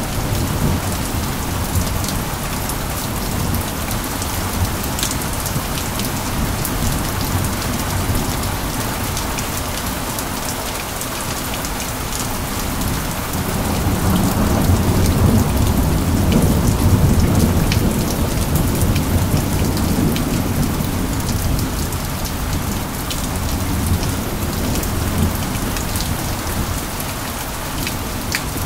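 Steady rain falling, with many individual drops ticking on a surface. About halfway through, a low rumble of thunder swells for several seconds and fades again.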